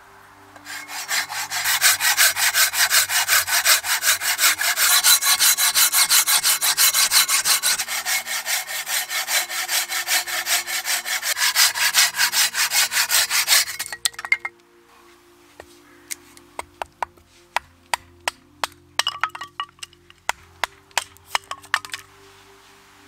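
A hand saw cutting through a birch pole in steady back-and-forth strokes, about four a second, stopping about 14 seconds in. A scatter of sharp wooden knocks and cracks follows as a blade splits kindling on a chopping block.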